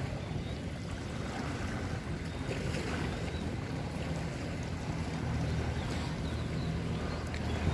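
A steady low engine hum with wind noise on the microphone.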